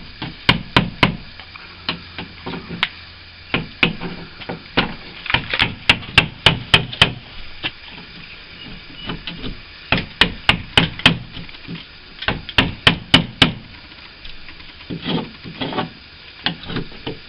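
Hammer tapping a chisel to chip hard old window putty out of a timber frame: quick runs of sharp taps with short pauses between.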